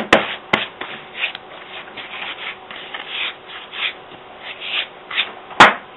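Hands rubbing baby powder over latex-painted claws, dusting the still-tacky coating so it stops being sticky: soft, irregular rubbing strokes. A few sharp clicks are heard, the loudest near the end.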